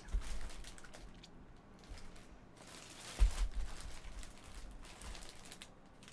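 Handling noise: rustling and crinkling of a jersey and its plastic packaging as it is unpacked, with two soft bumps, about a quarter second in and about three seconds in.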